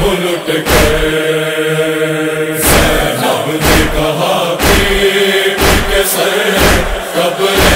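Noha backing chorus chanting a drawn-out refrain in long held notes. A heavy thump about once a second keeps a steady beat, the chest-beating (matam) rhythm of a noha.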